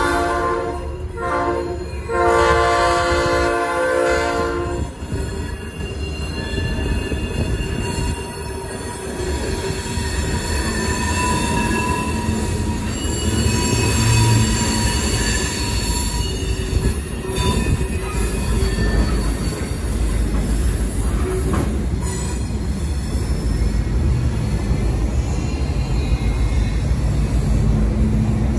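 Freight locomotive air horn sounding twice: a blast ending just after the start, then one of about three seconds. After that the freight train rumbles along the street track, with a high squeal from its wheels partway through.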